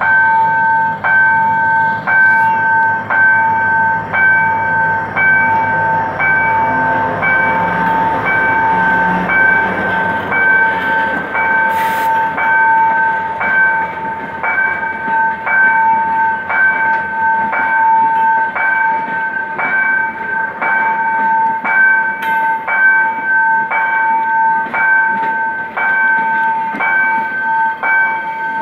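Level-crossing warning bell ringing about once a second over a passing passenger train. At first the GM GT22 diesel-electric locomotive's engine rumble is heard; after about ten seconds it fades, leaving the coaches rolling over the crossing.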